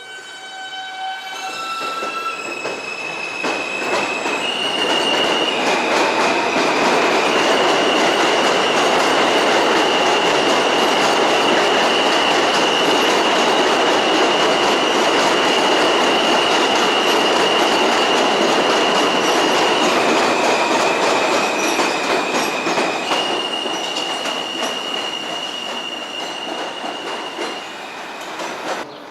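New York City subway train passing, with a high, steady wheel squeal that steps between two close pitches. The rumble builds over several seconds, stays loud for about ten seconds, then eases off.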